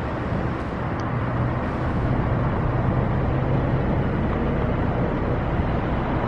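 Steady low hum of a car engine with road and traffic noise, heard from a car in city traffic.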